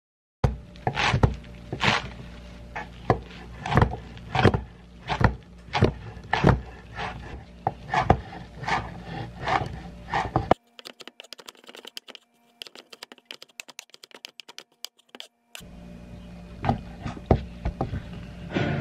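A chef's knife chopping leafy green herbs on a wooden cutting board: sharp knocks of the blade on the board, about one to two a second. Midway there is a stretch of faster, lighter clicks before the slower knocks return.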